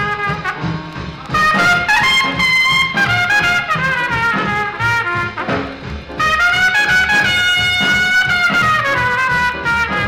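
Swing-era jazz recording: a brass horn plays a solo line of phrases and long held notes over a rhythm section.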